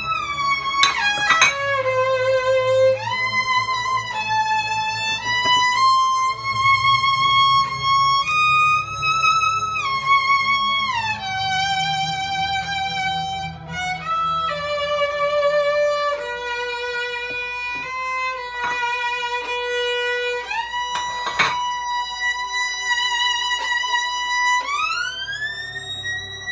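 Solo violin playing a slow melody of long held notes joined by sliding glides between pitches, with a slide up to a high held note near the end.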